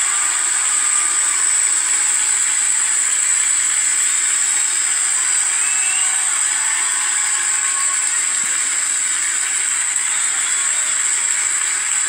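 The nine Merlin engines of a Falcon 9 Block 5 first stage firing at liftoff, heard as a steady, harsh hiss-like noise, thin in the low end, through the launch webcast feed.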